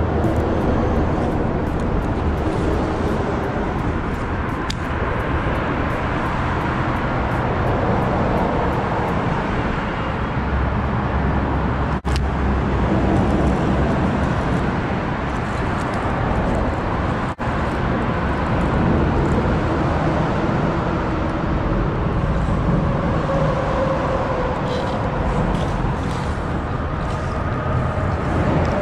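Steady rumble of road traffic on the highway overpasses overhead.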